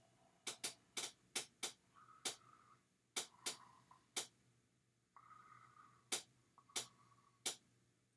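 A dozen or so sharp clicks at irregular spacing, several close together in the first two seconds and fewer later, with a faint high-pitched tone coming and going between them.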